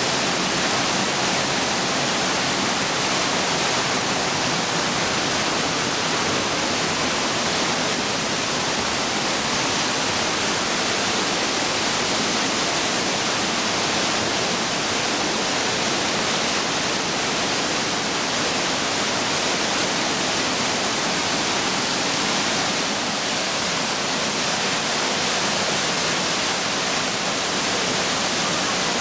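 Waterfall pouring into churning white water close by: a loud, even rush of water that holds steady throughout.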